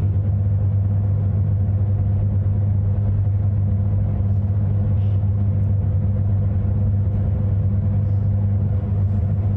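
Steady low electrical hum, unchanging, with a fainter higher tone above it.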